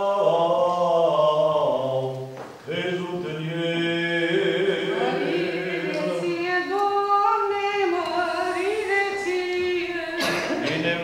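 Eastern Orthodox liturgical chant sung a cappella, long held notes that move in steps from pitch to pitch, with a short break about two and a half seconds in.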